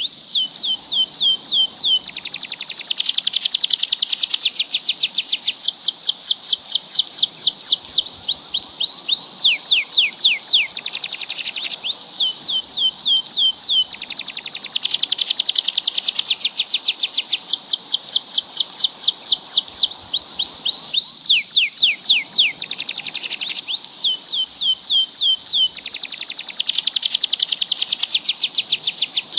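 Bird song: fast runs of high, downward-sweeping whistled notes alternating with rapid trills, continuous and loud. The same sequence of phrases repeats about every 12 seconds.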